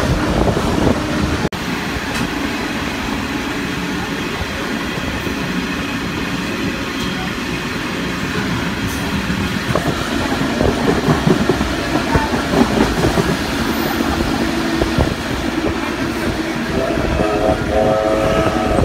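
Loaded coal hopper wagons of a freight train rolling past, their wheels rumbling and clattering over the rail joints. A steady squealing tone comes in near the end.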